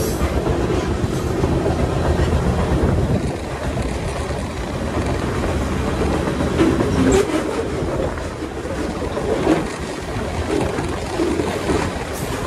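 Freight train running at speed, heard from on board one of its cars: a steady rumble and rattle of steel wheels on the rails, with a few sharper clanks scattered through it.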